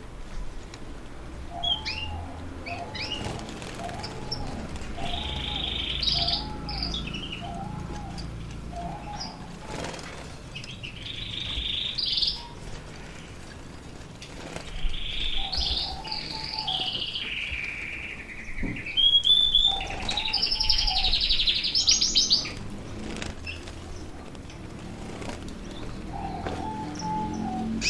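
Canaries singing and chirping in spells of trills and phrases, with a low arching note repeated about twice a second early on and short flutters of wings. The birds are coming into breeding condition.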